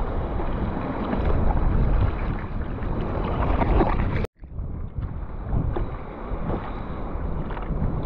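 Wind rumbling on the microphone and sea water sloshing around the surfboards, cut off for an instant a little past halfway.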